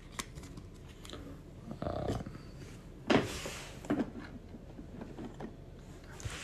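Handling of a trading card in a rigid clear plastic holder: faint rustles and light taps, then a sharp plastic clack about three seconds in as the holder is set into its stand, and a lighter knock a moment later.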